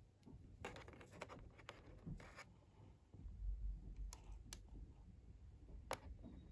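Faint clicks and crackles of a thin plastic chocolate-box tray being handled as a chocolate is lifted out of its slot, with one sharper click near the end.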